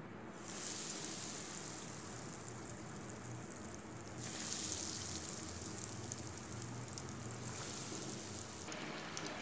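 Hot oil sizzling in a steel kadai as breadcrumb-coated chicken cheese balls are dropped in. The sizzle jumps up about half a second in and surges again at about four seconds as more balls go in.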